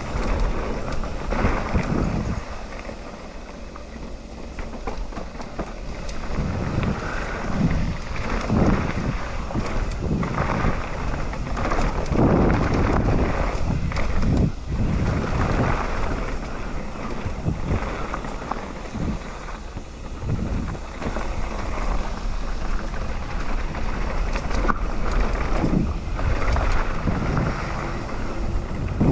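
Wind buffeting the camera microphone, with irregular knocks and rattles throughout.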